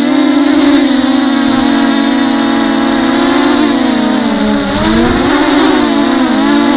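Brushless motors and propellers of a 250-class FPV racing quadcopter whining in flight, the pitch wavering with throttle and dipping then climbing again about five seconds in.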